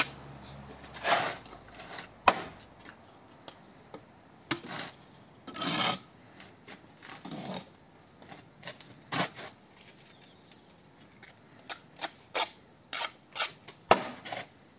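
Steel brick trowel scraping and slicing through mortar on a board and on brick, in short scrapes broken by sharp clicks and taps of the blade against brick, as mortar is picked up, a brick is buttered and the joints are trimmed.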